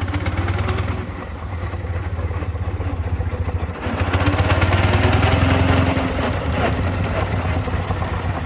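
Half-scale Burrell Gold Medal Tractor steam traction engine running as it drives along, with a fast, even beat of exhaust over a low steady hum. It grows louder about halfway through.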